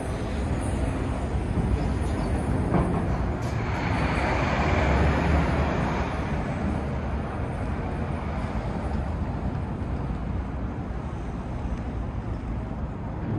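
City street traffic with a vehicle passing close by, swelling to its loudest in the middle and then fading back into the steady traffic rumble.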